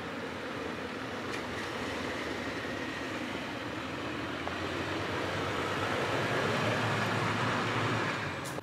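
Toyota 4Runner driving slowly past on a dirt trail: engine running and tyres rolling over dirt and gravel, growing louder as it comes close and dropping off near the end.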